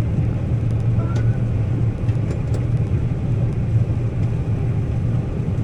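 John Deere combine running steadily while harvesting soybeans, heard from inside the cab: a constant low drone with a few faint clicks.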